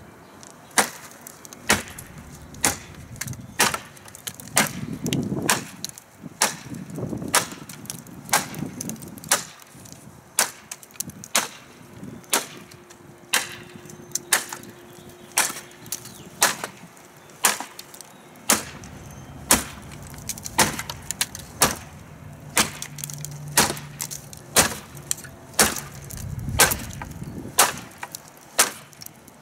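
TOPS Bushcrafter Kukuri 7, a heavy quarter-inch-thick 1095 carbon steel kukri, chopping into the weathered wooden slats of an old pallet. The blows come in quick succession, more than one a second, each a sharp crack of blade into dry wood, with slats splintering and breaking.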